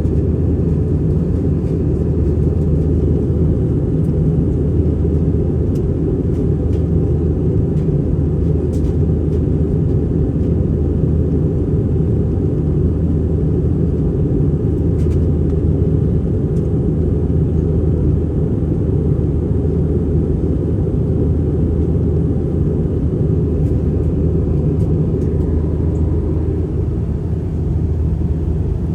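Airbus A320 jet airliner heard from inside the passenger cabin: the steady, loud rumble of its jet engines and airflow, unchanging throughout.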